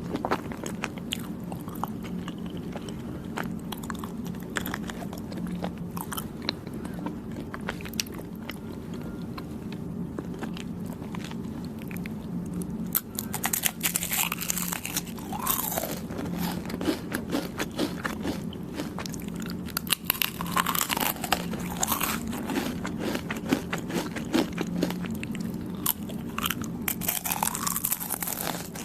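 Close-miked chewing and biting of soft, chewy Thai desserts (khanom Thai), with many small wet mouth clicks; the chewing gets busier and louder about halfway through.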